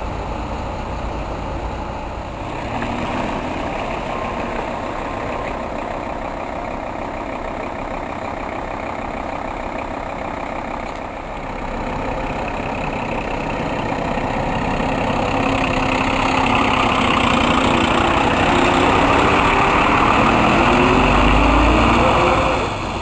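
Fire engine's diesel engine running steadily, then growing louder from about halfway through as the truck drives up close. Over the last few seconds it revs, rising in pitch as it pulls past.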